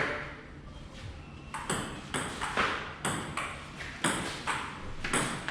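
Table tennis rally: the ball clicking sharply off paddles and the table, about two to three hits a second, starting about a second and a half in.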